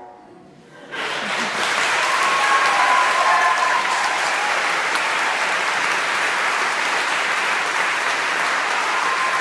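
Audience applause in a hall, breaking out about a second in as the bassoon quartet's final chord dies away, then holding steady, with a few voices calling out over it.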